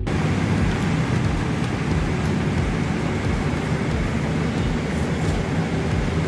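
Steady drone of an airliner cabin in flight: the even noise of the jet engines and airflow, heaviest in the low end.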